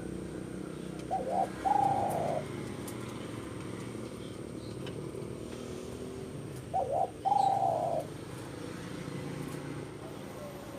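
A dove cooing twice, about five seconds apart: each call is a couple of short notes followed by a longer rolling coo. A steady low hum runs underneath.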